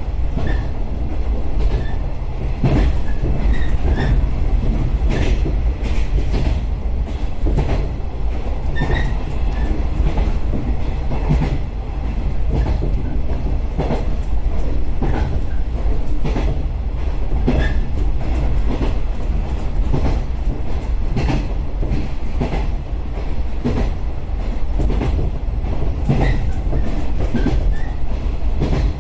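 Inside a JR 115-series electric train running along the line: a steady low rumble with repeated clatter and knocks from the wheels over the rails.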